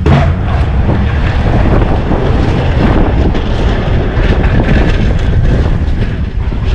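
Engine of a snow-plowing vehicle running steadily, mixed with loud wind noise on the microphone, with a sudden louder rush right at the start.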